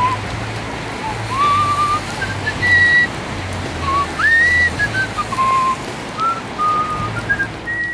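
A person whistling a slow tune, each note gliding up into a held pitch, over a steady hiss of rain. A low pulsing bass runs underneath.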